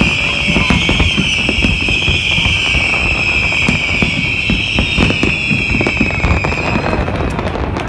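Fireworks display going off: a dense run of booms and crackles, with a steady high-pitched whistle over them that stops near the end.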